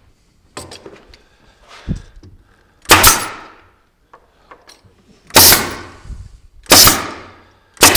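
Pneumatic nail gun firing nails into particleboard: four sharp shots, each trailing off briefly, the last two about a second apart, after a few lighter knocks.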